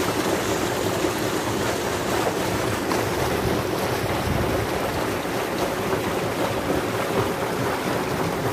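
Steady rushing noise of wind on the microphone, with a low wavering hum underneath.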